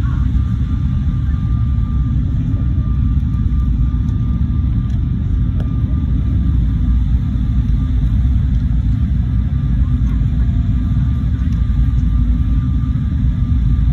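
Airliner cabin noise on approach to landing: a steady low rumble of engines and airflow heard from a window seat, with a faint steady whine above it.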